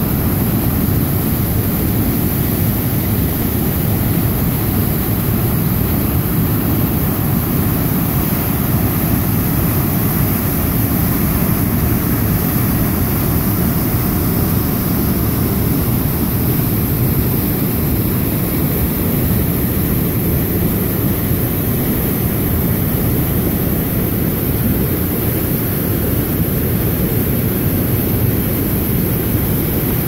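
Cheakamus River waterfall: a large volume of water pouring over the falls and churning through the rocky channel below, a loud, steady, deep rush with no let-up.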